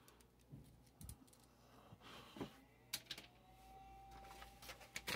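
Faint, scattered clicks and taps of plastic Lego bricks being handled and pressed together, a few separate clicks at first and a quicker cluster near the end.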